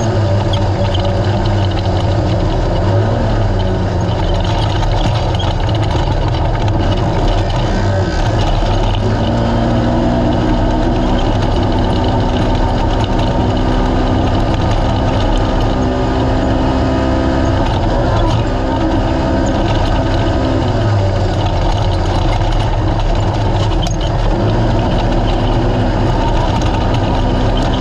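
Naturally aspirated race UTV engine running hard at fairly steady revs over rough desert terrain; the revs dip briefly and climb back a few times.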